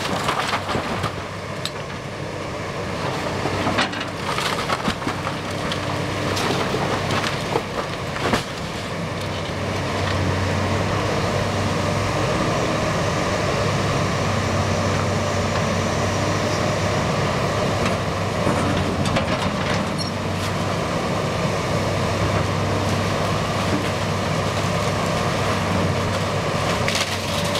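Case tracked excavator's diesel engine running under load as its bucket tears into a building, with cracking, splintering wood and crashing debris, the breaking most frequent in the first eight seconds. The engine settles into a louder, steadier drone from about ten seconds in.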